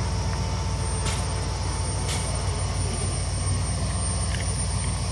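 Off-road 4x4 vehicle's engine running at a steady low speed, a low even drone, with two faint clicks about a second apart.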